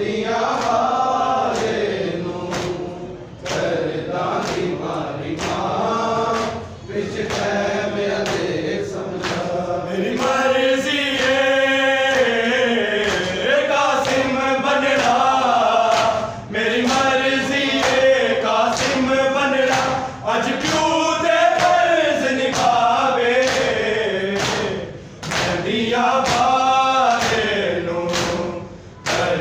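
Men chanting a Shia noha (lament) in chorus, with the steady beat of matam: open hands slapping chests a little more than once a second.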